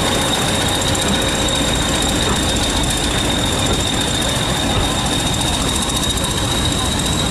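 Passenger coaches rolling past close by: a steady, loud noise of wheels running on the rails, with a thin, high whine held over it.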